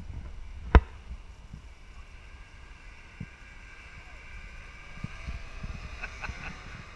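Distant snowmobile engines running, a faint high drone that grows a little stronger near the end, over wind buffeting the microphone. A single sharp knock comes about a second in.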